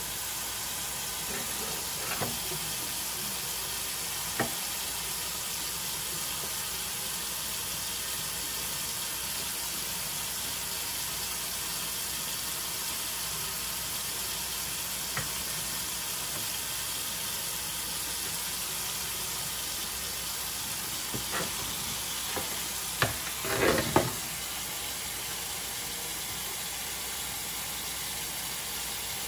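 Kitchen tap running steadily into a stainless steel sink, with a few knocks and, about three-quarters of the way through, a short clatter from handling the fish and knife in the sink.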